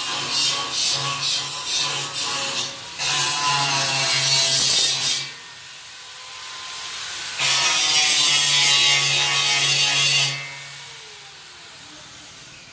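Handheld electric power tool cutting wood. It makes a few short strokes, then two longer loud passes of about two seconds each, with the motor running lighter in between. Near the end it is switched off and its whine falls away as it spins down.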